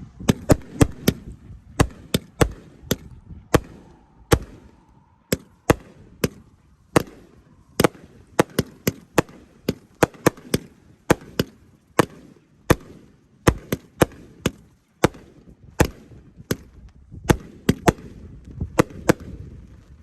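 A 500-gram consumer firework cake fires a rapid series of shots. Sharp reports come two or three a second with irregular spacing over a low rumble.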